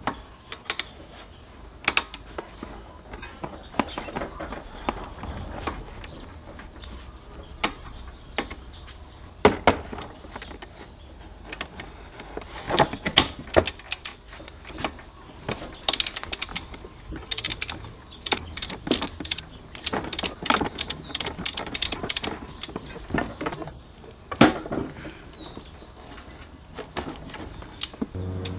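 Metal hand tools clicking and clinking in irregular bursts, typical of a ratchet and sockets being worked on a scooter's front fork, with a run of rapid clicks about halfway through.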